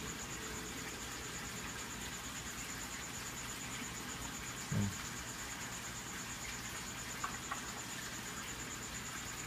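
Steady background noise from a koi pond, an even rush with a thin high tone over it. A brief low thump comes about halfway through.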